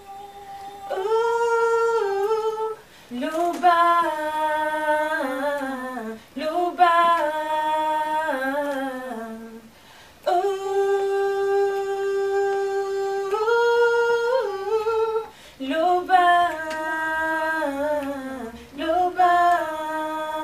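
A woman singing a slow worship song a cappella, in long phrases of a few seconds each, with one long held note about halfway through.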